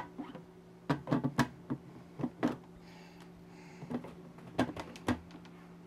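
Acrylic collection cup of a Reef Octopus Elite protein skimmer being set into the notches of its collar and twisted to lock: a quick series of sharp plastic clicks and taps, then two more knocks a little later.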